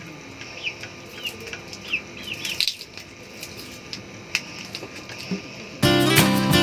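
Cardboard and plastic packaging being opened by hand: crinkling, rustling and scattered clicks. Strummed acoustic guitar music starts suddenly near the end.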